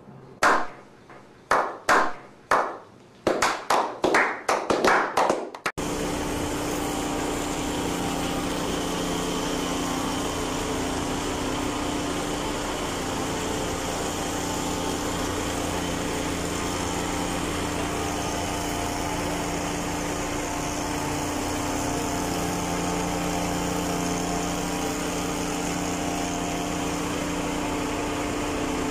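Slow hand clapping that gets faster over about five seconds, then a cut to the small engine of a motorised backpack sprayer running steadily at a constant speed while disinfectant is misted.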